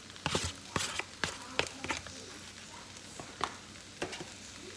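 Chicken fried rice sizzling in a hot wok, with a series of sharp knocks and scrapes, most of them in the first two seconds, as eggs go in and a wooden spoon stirs them through.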